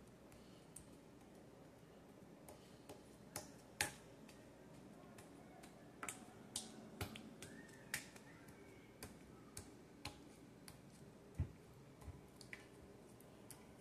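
Sticky slime with foam beads mixed in, pressed and kneaded flat by hand, giving irregular small sharp clicks and pops, the loudest about four seconds in.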